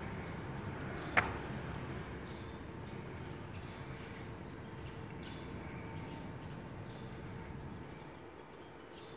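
Steady outdoor background noise with faint, short, high-pitched chirps every second or so, which may be birds, and one sharp click about a second in.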